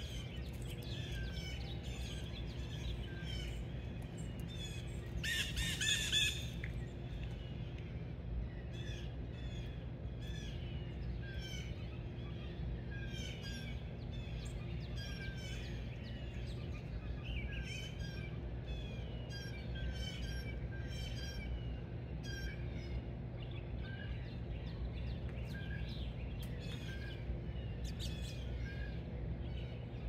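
Many small birds chirping in quick, overlapping short calls, with one louder, harsher call lasting about a second roughly five seconds in, over a steady low background rumble.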